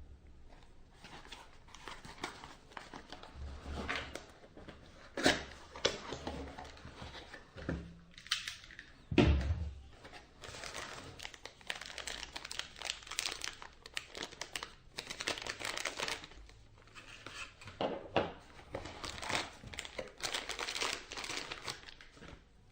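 Packaging being handled and opened: crinkling, rustling and tearing in irregular spurts, with a few thumps, the loudest about nine seconds in.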